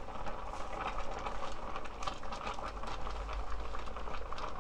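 Pot of spicy fish stew boiling: a steady crackle of many small bursting bubbles over a low steady hum.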